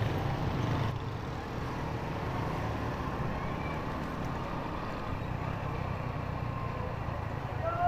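Small motorcycle engine running steadily as it is ridden through street traffic, with a low rumble and the general noise of the traffic around it. A vehicle horn sounds briefly near the end.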